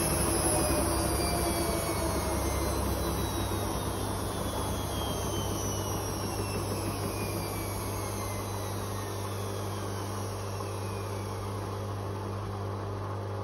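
Hotpoint Aquarius Extra WMA37 washing machine's drum and motor winding down at the end of the final spin: a whine that falls slowly in pitch while the whole sound fades as the drum slows, over a steady low hum.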